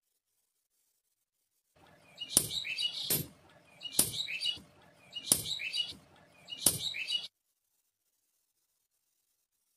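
Hammer blows on glowing steel held on an anvil: five sharp strikes, roughly one every second to second and a half, each followed by a short, high, chattering clink. The striking begins about two seconds in and breaks off suddenly about seven seconds in.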